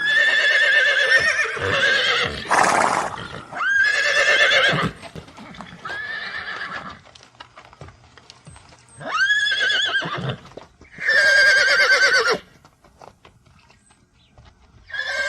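Horse whinnying repeatedly: about six separate quavering neighs with short quiet gaps between them, the later ones rising sharply in pitch at the start. A short noisy blast comes between the first two.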